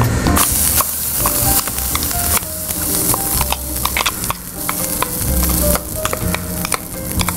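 A spoon scrapes thick ground beetroot chutney out of a jar into a kadai of hot tempering oil, which sizzles as the chutney lands in it, with scattered scraping clinks of spoon on metal.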